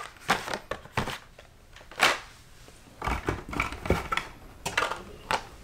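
Hot Wheels blister-card packages being handled: plastic blisters and cardboard backing cards crinkling and clicking in a string of short, irregular taps, the loudest about two seconds in.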